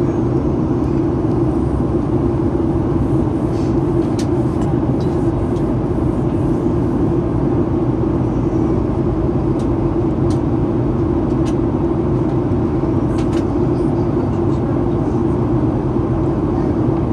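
Steady cabin noise inside a Boeing 737-800 in flight: the drone of its CFM56-7B turbofan engines mixed with rushing airflow, with a strong low hum. A few faint ticks sound over it.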